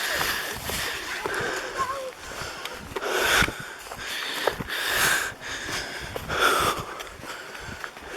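A man breathing hard and wheezing, with a loud breath roughly every one and a half seconds: he is out of breath from jogging up a steep climb.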